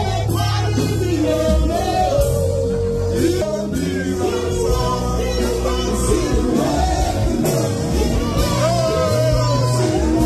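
Loud music with a singing voice over sustained bass notes.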